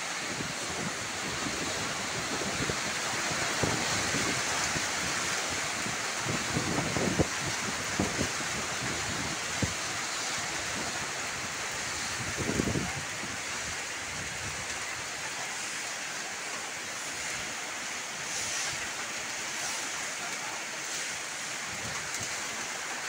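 Steady rain falling on a wet concrete yard, with gusts of wind buffeting the microphone in the first half.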